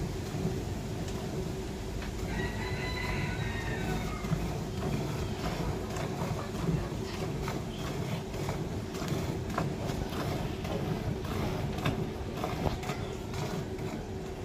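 Cow being milked by hand: milk squirting in quick, uneven strokes into a steel pail full of froth.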